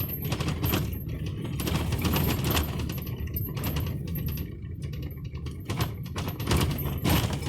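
Inside a pickup truck's cab on a rough dirt road: a steady low rumble from the truck and road, with loose things in the cab rattling and clinking over the bumps.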